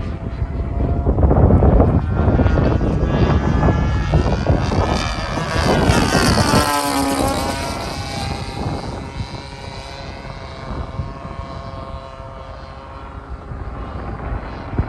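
DLE-35RA single-cylinder two-stroke gasoline engine and propeller of a Hangar9 P-47 Thunderbolt Razorback RC plane in flight, making a pass. The engine pitch rises as the plane approaches, then drops sharply about halfway through as it goes by, and the sound fades away after that.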